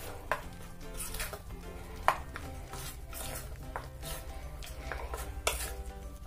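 A metal spoon stirring thick, damp lentil paste in a steel bowl, with scattered clinks and scrapes against the bowl, the sharpest about two seconds in. Soft background music plays underneath.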